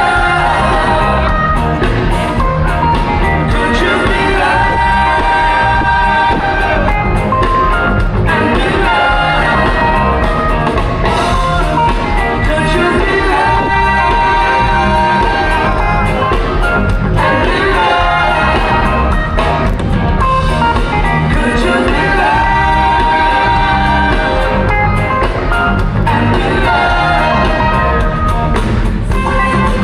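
Live pop-rock band playing loud: trumpet and saxophone lines over electric guitars, with singing.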